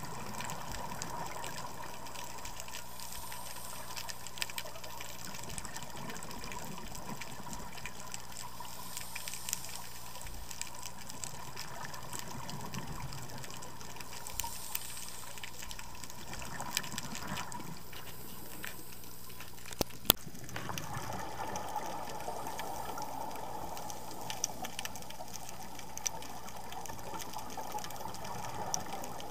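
Underwater ambience: a steady muffled water hiss with scattered faint clicks, and one sharper click about twenty seconds in.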